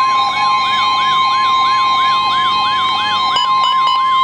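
Emergency Alert System alarm sounding: a steady high tone under a siren-like sweep that rises again and again, about three times a second.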